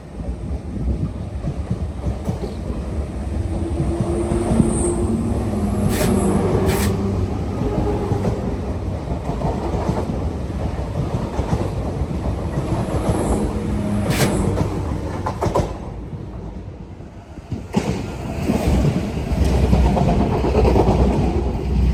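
A train running past with a steady rumble, its wheels clacking over rail joints a few times. The noise dips briefly about three-quarters of the way through, then builds again.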